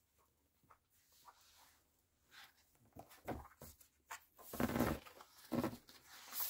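Pages of a large hardback picture book being turned and handled: a few short paper rustles in the second half, the loudest just before five seconds in.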